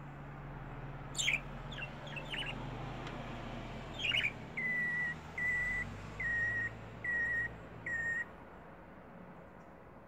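Budgerigar calling: a few quick falling chirps, then five short, clear whistled notes at one steady pitch, evenly spaced a little under a second apart, stopping about eight seconds in.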